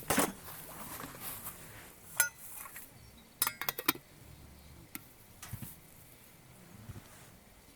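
Metal objects being handled: scattered sharp clinks and knocks, some with a brief metallic ring, and a quick run of clinks about three and a half seconds in.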